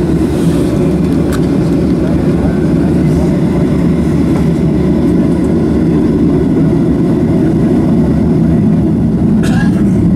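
Steady low rumble inside the cabin of a Boeing 737-700 rolling on the ground: its jet engines running and the airframe and wheels rumbling at an even level. A brief click sounds near the end.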